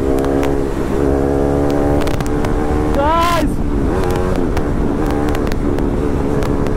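KTM Duke 390's single-cylinder engine running at a steady pace through an aftermarket SC Project slip-on exhaust on a bend pipe, as the bike is ridden.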